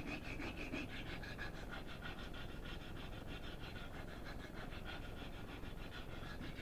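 Kitchen knife blade scraping back and forth on a 120-grit sharpening stone in quick, even strokes, about four or five a second.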